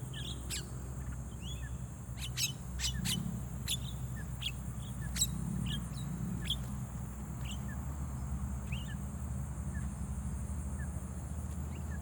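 Birds calling with scattered short chirps and sharp, clipped notes, thickest in the first half. Under the calls run a steady low hum and a thin, steady high whine.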